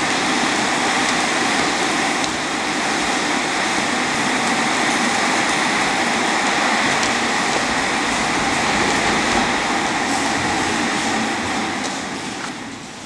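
A steady, loud rushing noise with a faint hum of held tones running through it, fading away near the end.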